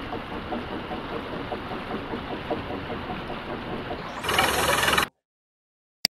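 Water gushing from a newly drilled borehole in a high jet, over a drilling rig's engine running steadily. About four seconds in, a louder rushing noise swells for about a second and cuts off abruptly. A short mouse click sounds near the end.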